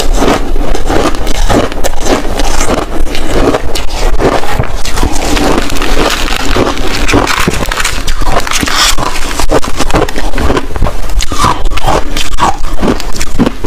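A block of compressed shaved ice being crumbled and broken apart by gloved hands, giving a dense, continuous crunching and crackling.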